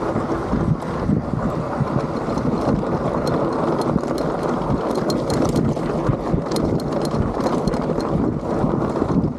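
Wind buffeting the microphone while a bike's tyres roll over loose sand and gravel, with many small clicks and rattles from the bike and stones.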